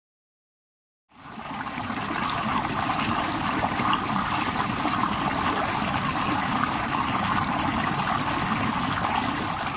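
Steady rush of running water, fading in after about a second of silence.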